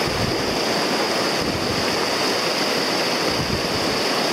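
Fast-running mountain trout stream rushing over rocks through a whitewater riffle: a steady, even rushing noise.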